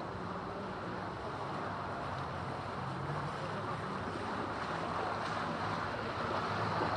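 Motorboat engine's low steady hum over a hiss of moving water, slowly growing louder toward the end.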